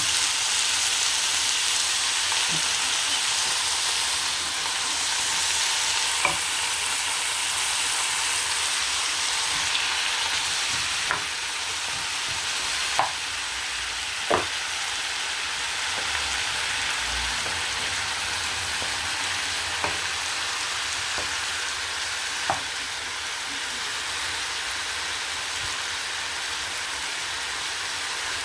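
Chicken legs sizzling steadily as they fry in hot oil with onion, garlic and ginger, with a few sharp clicks scattered through.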